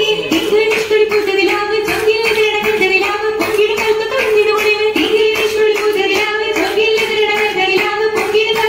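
Oppana song: voices singing a Mappila-style melody in unison over a steady held note, with regular rhythmic hand claps from the dancers.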